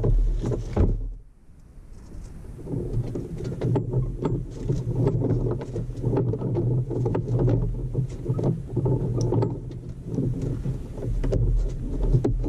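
Knocks and clatter of anchor gear being readied on a small sailboat's foredeck, over a steady low hum. A loud low rumble fills the first second or so.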